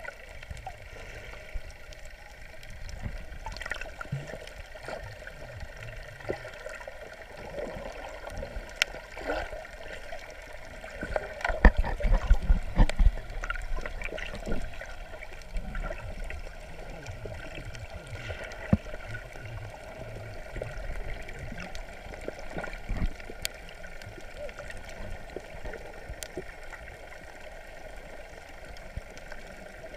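Water moving around an underwater camera: muffled gurgling and bubbling with scattered knocks, and a louder patch of churning and thumps about twelve seconds in.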